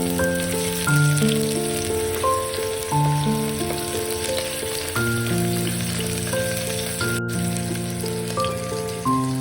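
Food frying in a pan with a steady sizzle, under background music of held chords that change about once a second.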